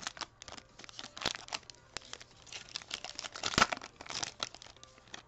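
A foil Topps Series 1 baseball card pack wrapper being torn open and crinkled by hand, in a run of rustling, tearing bursts, the loudest about three and a half seconds in.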